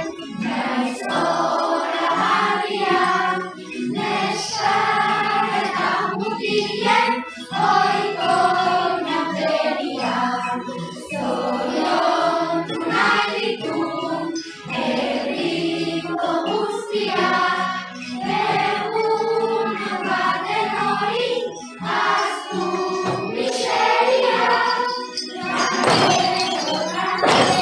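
A song sung by a choir of voices over instrumental music.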